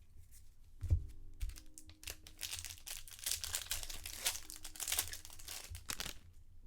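Trading-card pack being handled: foil wrapper crinkling and cards rustling, with many short sharp clicks, starting about a second in and stopping a little before the end.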